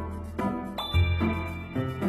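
Background music with plucked notes over a steady bass, joined about a second in by a bright bell-like ding that rings on.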